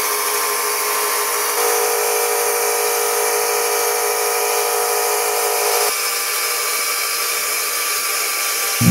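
MK-101 wet tile saw with a water-cooled diamond blade, running and grinding through a strip of fused glass: a steady whine of several held tones over hiss. The whine shifts about a second and a half in and drops back around six seconds in.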